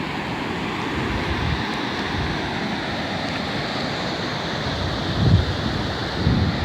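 Sea surf washing steadily, with wind buffeting the microphone in low rumbles and two stronger gusts near the end.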